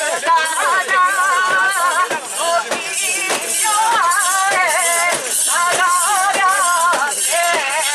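Mikoshi bearers singing and chanting in a wavering, drawn-out voice, over a rhythmic metallic rattling of the shrine's carrying-pole rings and jingles.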